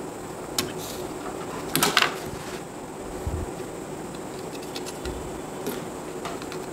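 Light clicks and knocks of a desoldered power MOSFET and a charger circuit board being handled on a workbench, with a sharper knock about two seconds in and a few dull thumps later. A steady faint hum runs underneath.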